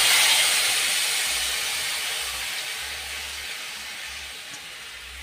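Hot mustard oil sizzling as turmeric-and-salt water is poured into the pan, a loud hiss that dies down steadily as the water takes the heat out of the oil.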